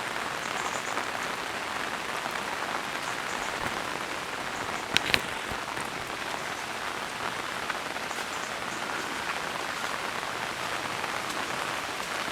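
Steady hiss of water, heavy rain or rushing floodwater, with two sharp clicks about five seconds in.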